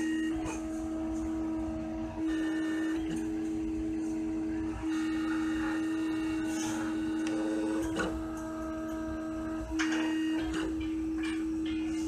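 Computer-controlled engraving machine running as it cuts lettering into a Victorinox pocketknife handle. Its motors give a steady whine that dips briefly about four times.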